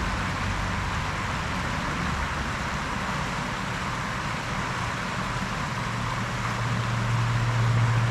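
Steady rushing of flowing stream water, with a low hum that swells over the last couple of seconds.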